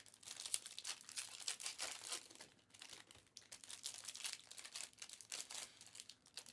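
Plastic wrapping of trading card packs crinkling and tearing as they are handled and opened, a quick irregular crackle.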